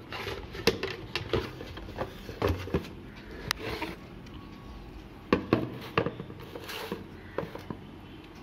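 Plastic toy foam-dart blaster and its cardboard box being handled as the blaster is slid out of the box: a string of irregular clicks and knocks, the loudest about a second in and again around five to six seconds in.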